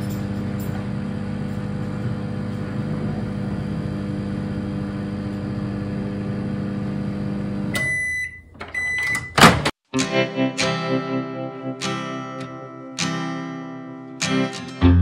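800-watt microwave oven running with a steady hum as its timer runs out, then stopping and beeping twice to signal the end of the heating cycle, followed by a sharp click. Strummed guitar music takes over about two-thirds of the way through.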